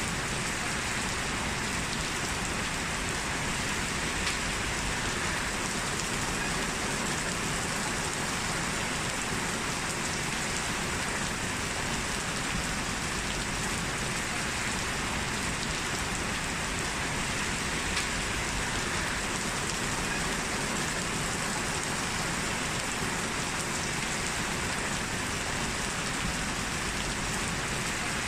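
Steady heavy rain falling and pattering on surfaces, with scattered individual drop ticks.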